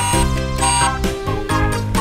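Background music: a tune with held bass notes under a melody of short changing notes.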